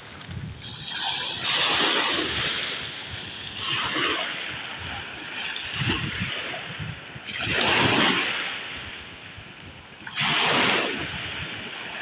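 Small choppy sea waves lapping and splashing close by, in four surges a few seconds apart.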